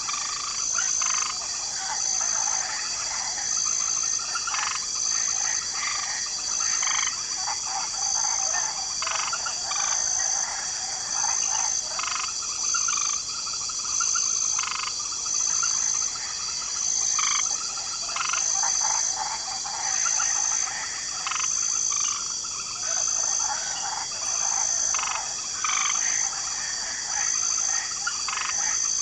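Swamp night chorus of frogs croaking and trilling in overlapping, irregular calls. Beneath them runs a steady high drone of crickets, with a high chirp pulsing about every second and a half.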